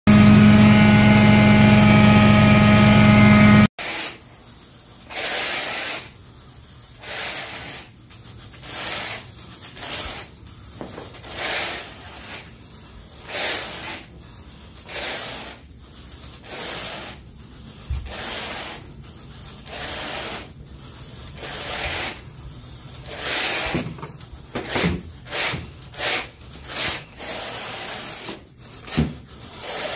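Carpet grooming rake dragged back and forth through carpet pile in repeated scratchy swishes, about one every one to two seconds, coming quicker near the end. Before it, a loud steady hum fills the first few seconds and cuts off abruptly.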